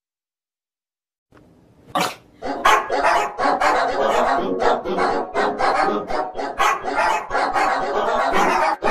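Small white American Eskimo dog barking loudly in a rapid, unbroken string of barks, starting about two seconds in after a brief silence.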